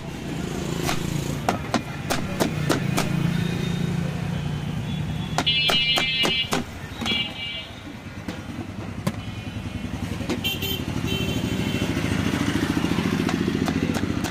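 A motorcycle engine running in passing road traffic, growing louder near the end, with sharp clicks of a kitchen knife cutting a raw green guava on a cutting board.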